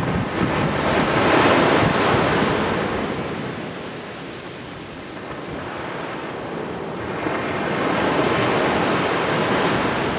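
Small waves breaking and washing up a sandy beach, the surf swelling about a second and a half in, easing off, then building again from about seven seconds on.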